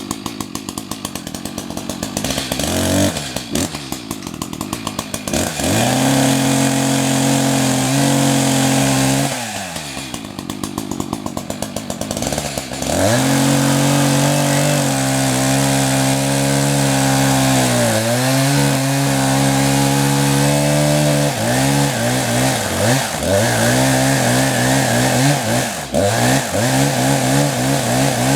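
ECHO CS-590 Timberwolf 60cc two-stroke chainsaw idling, revved up to full throttle and back down to idle, then held at high revs. In the later part the pitch sags and wavers unevenly.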